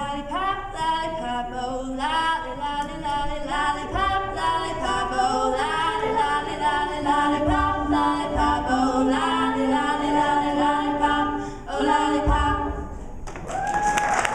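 Three women's voices singing a cappella in close harmony into microphones. The song ends about a second before the close, and applause breaks out.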